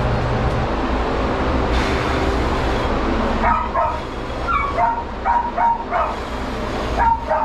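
A dog giving a run of short, high yelping whines, about eight of them from halfway through, over the steady rush of a pet blow dryer.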